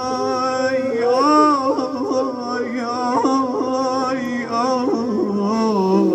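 Male Shia reciter (radood) singing an Iraqi elegy, a held, heavily ornamented melodic line with bending pitch and no clear words, in the style of the lament's drawn-out sighs (ahat).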